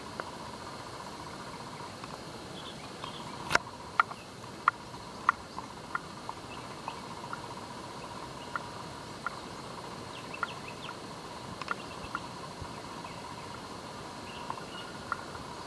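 Swamp-forest ambience: a steady faint drone with short, sharp chirps at irregular intervals, thickest in the first half, and one louder click about three and a half seconds in.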